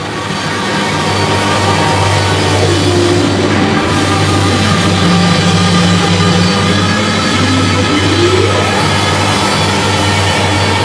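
Loud, distorted grunge rock with drums and guitar. A held tone slides down in pitch a few seconds in and climbs back up near the end.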